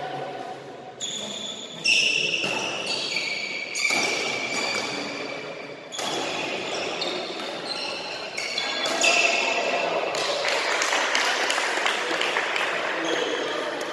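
Badminton rally in a sports hall: sharp racket strikes on the shuttlecock, about four in the first six seconds, mixed with short high squeaks of court shoes on the floor, echoing in the hall. In the last few seconds a steady rush of noise takes over.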